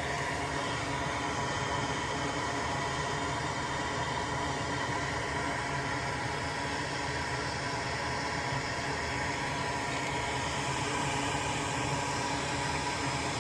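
Steady whir of a small electric blower on a soldering bench, running evenly while a component is desoldered.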